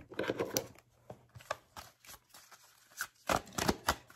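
A deck of tarot cards being handled and shuffled by hand: short bursts of card flicks and rustling, with the busiest stretches near the start and again about three seconds in.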